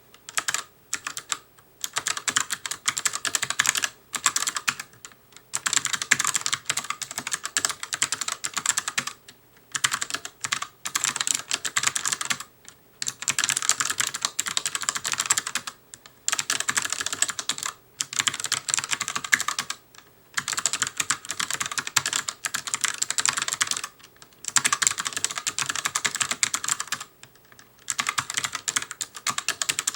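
ELECOM ARMA TK-ARMA50BK low-profile mechanical keyboard with clicky switches being typed on fast, in bursts of rapid key clicks broken by short pauses.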